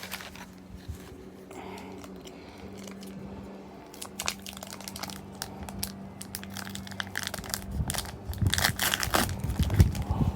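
Foil booster pack wrapper crinkling and crackling as it is handled and opened, sparse at first, then busier and louder over the last few seconds.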